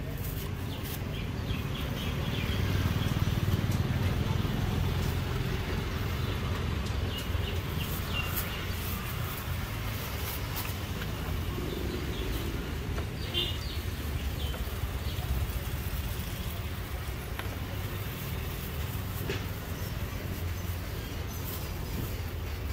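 Steady low outdoor street rumble, like distant traffic, swelling a little a few seconds in, with scattered light crinkles and ticks of thin plastic bags being handled.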